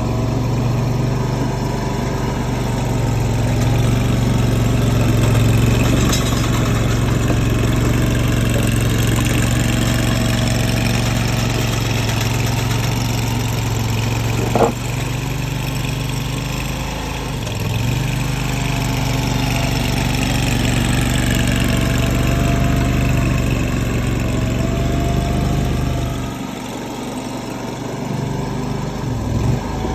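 Tracked mini skid steer's engine running steadily while the machine works, with a single sharp knock about halfway through. The engine note drops for a couple of seconds near the end.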